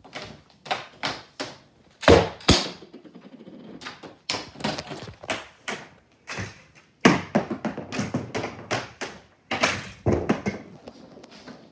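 Hockey stick clacking against pucks: a quick run of sharp knocks, about two or three a second, with a few louder hits.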